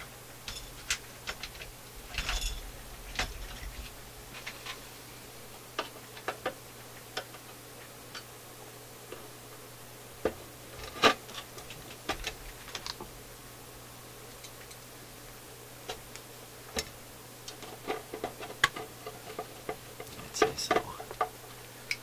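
Scattered light clicks and metallic taps of small screws and a screwdriver being handled against a steel radio chassis and its bottom plate, irregular, with the loudest tap about eleven seconds in. A faint steady low hum runs underneath.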